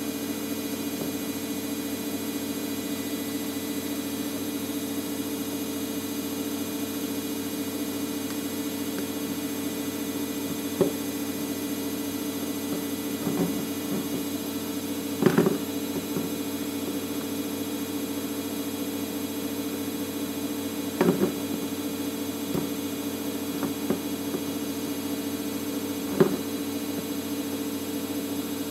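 A steady hum, with about seven short clicks and knocks as a lightweight aluminium camera tripod is handled and set up on a table; the loudest knock comes about halfway through.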